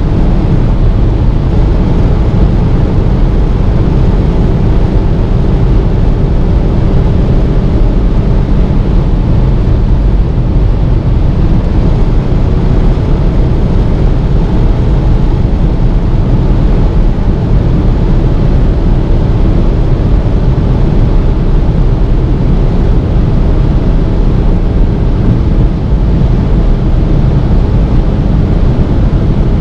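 Steady wind and road noise inside the cabin of a Seat Leon Cupra with a 2.0 TSI turbo four (ABT-tuned to 350 hp) travelling at about 235–255 km/h, with a faint engine drone underneath.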